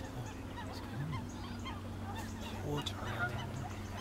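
Many distant waterbirds calling at once, a scatter of short overlapping calls over a steady low rumble.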